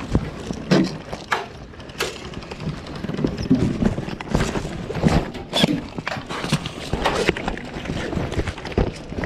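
Irregular sharp knocks and clicks, roughly two a second.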